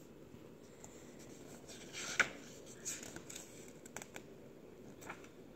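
Paper rustling and a few soft taps as the pages of a picture book are handled and turned, loudest about two seconds in.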